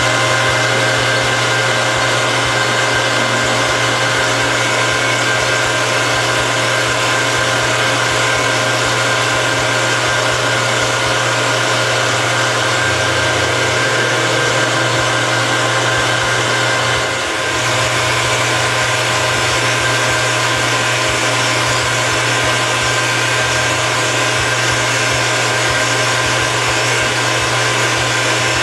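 Metal lathe running steadily, its motor and spindle giving a constant whir with several steady tones, while turning and facing a cast knob. The level dips briefly a little past halfway.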